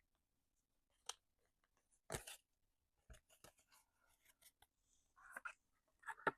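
Near silence broken by a few faint, short rustles and taps of paper being handled.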